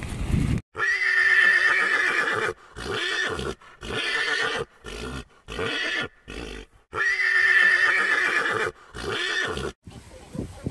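A horse neighing: a long, high call followed by a string of shorter calls, then a second long call and a short one.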